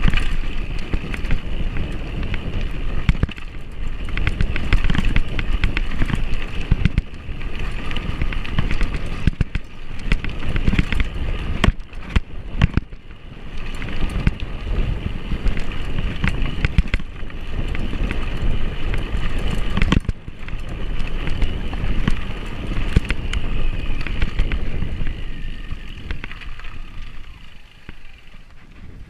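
Road bike ridden over a rough dirt and gravel lane, heard from a camera mounted on the bike: a steady rumble of tyres and frame with many rattling knocks over bumps. It eases off near the end as the surface gets smoother.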